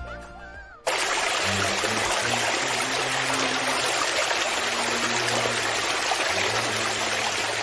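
Steady rush of running water that cuts in suddenly about a second in, just as background music ends.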